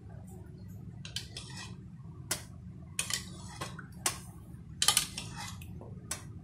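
Metal spoon clinking and scraping against a stainless steel tray and bowls while liquid agar jelly is spooned over, a dozen or so irregular light clinks, the loudest about five seconds in.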